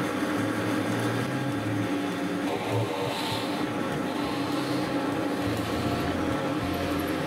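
Drill press motor running steadily while a cutter bores into a plywood disc.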